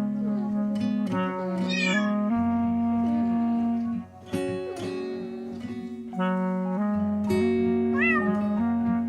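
Background music with held chords, and a cat meowing twice: a high meow about two seconds in and another near the end.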